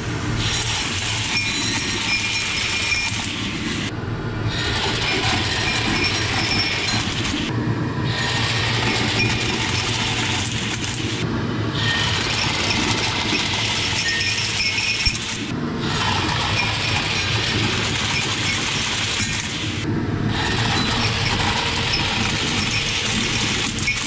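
Vacuum cleaner running steadily while its hose sucks up strings of bead garland, the beads rattling and clinking against the glass cups and through the nozzle. The clatter breaks off briefly about every four seconds as one strand ends and the next begins.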